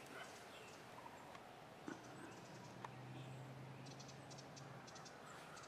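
Near silence in the woods, with a few faint scattered ticks and clicks and a faint low hum through the middle.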